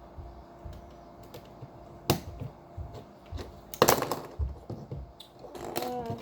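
Plastic Lego bricks clicking and rattling as pieces are handled and pressed together: a sharp click about two seconds in and a burst of clatter near four seconds.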